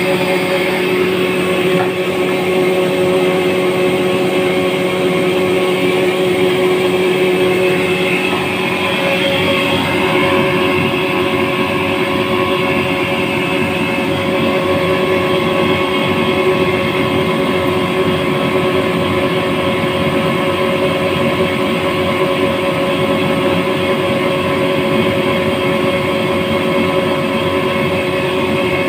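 Millet dehuller with aspirator running: its electric motors and aspirator blower make a steady hum with a constant drone, over a rushing hiss of grain passing through the machine.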